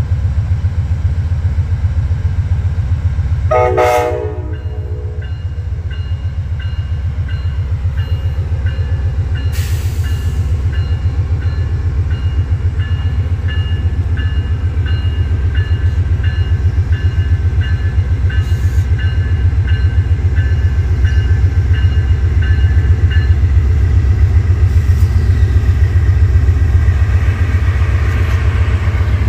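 Diesel locomotive running with a steady low throb. It gives one short horn blast about four seconds in, then its bell rings in even strokes for close to twenty seconds. A hiss builds near the end.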